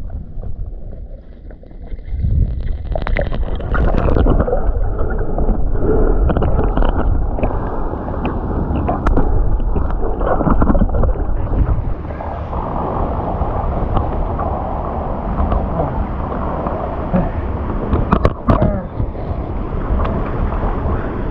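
Waterfall water rushing and churning, a continuous dull noise with little treble that brightens somewhat about halfway through, with a couple of sharp knocks near the end.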